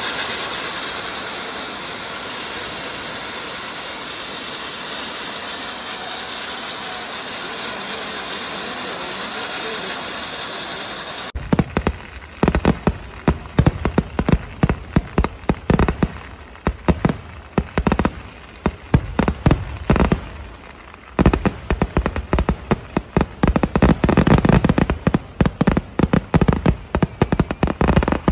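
Fireworks: first a steady dense hiss and crackle of sparks pouring from a tall fireworks tower. After a sudden cut about eleven seconds in come dense volleys of rapid, sharp firecracker and aerial-shell bangs, with a brief lull just past the middle.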